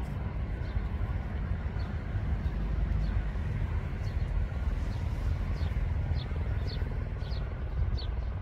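Steady low rumble of road traffic. Over it, from about midway, a bird gives short, high, falling chirps about twice a second.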